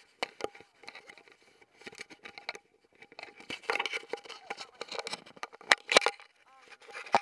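Irregular clicks, crinkling and rustling close to the microphone, with a few sharper knocks around six seconds in and again near the end.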